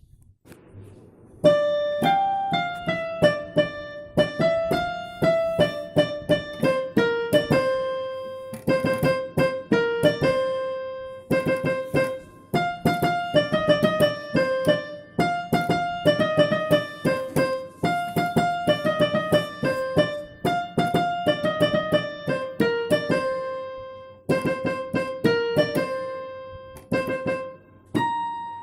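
Background piano music: a steady run of plucky keyboard notes in a repeating melody, starting about a second and a half in.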